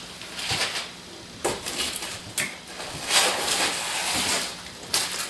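Packaging and parts being handled: rustling with a few sharp knocks, and a longer stretch of rustling about three seconds in.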